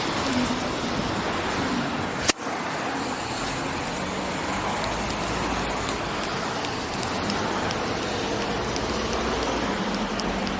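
Steady city street ambience with the hiss of passing road traffic, and one sharp click about two seconds in.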